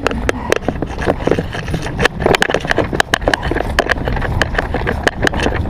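Footsteps and gear rustling as a person climbs a hill on foot: a quick, irregular run of sharp crunches and clicks over a low rumble.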